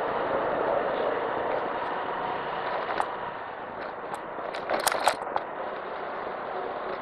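Honda Navi 110 scooter's small single-cylinder engine running as it rides off a ferry's vehicle deck, under steady wind and road noise, with a sharp knock about three seconds in and a short cluster of clattering knocks around five seconds in.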